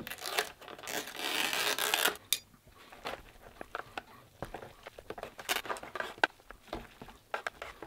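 A thump, then the lid of an instant noodle tray being peeled back: a continuous tearing rip lasting about a second, starting about a second in. After it come scattered light clicks and rustles of chopsticks poking the noodles in the plastic tray.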